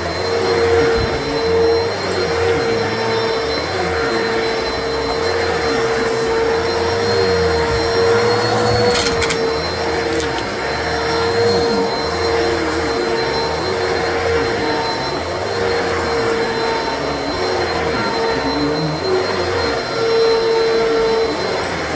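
Upright vacuum cleaner running on carpet with a steady motor whine, its brushroll making a crunching noise as the head is pushed back and forth. A couple of sharp clicks come about nine seconds in.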